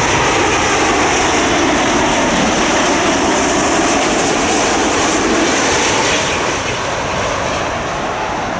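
Jet airliner on final approach to land, its engines making a loud, steady noise that eases off about six seconds in as it passes.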